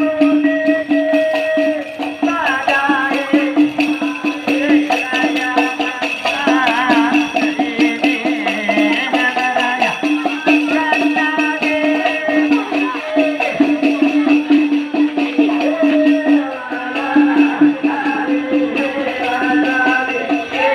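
Rebana frame drums beaten by hand in a quick, steady rhythm, with a group of voices singing a devotional chant over them.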